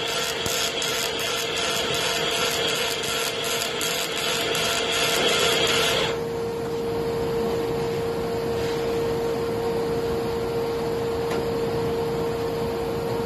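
MIG welder arc in double pulse mode, crackling with a rhythmic pulse a few times a second, which stops abruptly about six seconds in. A steady hum carries on through the rest.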